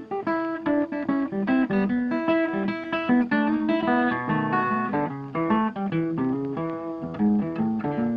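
Background music: acoustic guitar playing a quick run of plucked notes.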